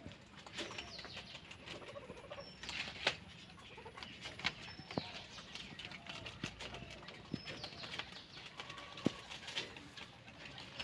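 Guinea pigs and rabbits chewing and tugging at jackfruit leaves: a scatter of crisp crunching clicks and leaf rustling. A bird calls a short, high, falling whistle every two to three seconds.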